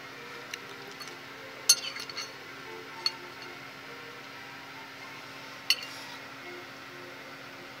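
Metal fork clinking and scraping against a ceramic bowl while picking up food: a few sharp clinks, the loudest about one and a half seconds in with smaller ones right after, another around three seconds and a sharp one near six seconds, over a faint steady hum.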